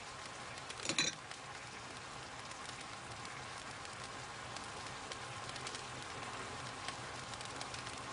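Steady soft crackling hiss. A metal spoon clinks once against a dish about a second in, while caviar is spooned out.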